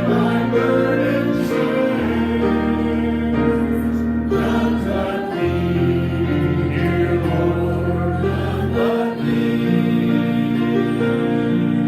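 A congregation singing a slow hymn over an instrumental accompaniment of long held chords, with a deep bass note that changes every few seconds.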